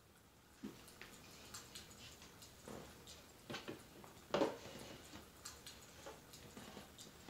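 Recorded fireplace sound crackling softly, with irregular small pops and crackles. About four seconds in there is a louder knock as a cup is set down on a shelf.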